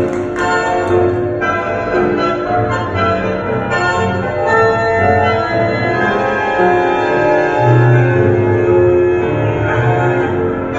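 Tango music playing in the hall, with long held notes over a steady low beat.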